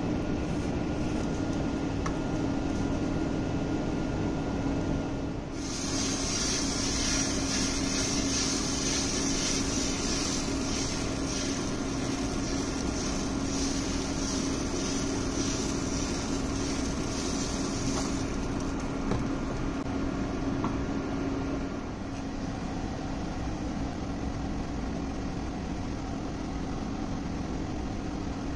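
Steady fan-like motor hum with a low steady tone. From about six to eighteen seconds in, a brighter crackling hiss joins it: roti jala batter sizzling as it is drizzled onto the hot electric pan.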